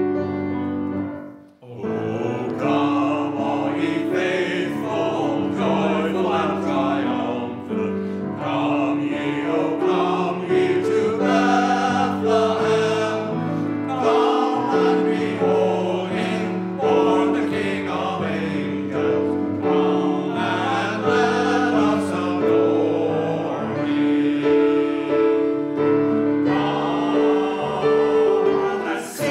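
Mixed church choir singing with piano accompaniment. A short piano sound opens it and fades out about a second and a half in, before the choir and piano come in together.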